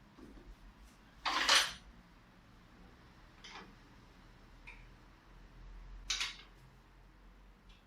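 A few short metallic clatters, as of metal parts being handled or set down. The loudest comes about a second and a half in, with two fainter ones later.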